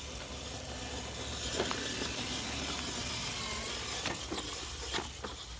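Redcat Gen7 portal-axle RC rock crawler with a Hobbywing AXE brushless motor driving at full speed: a steady mechanical whir of the drivetrain and tyres, with a few sharp clicks and knocks in the second half as it climbs onto concrete.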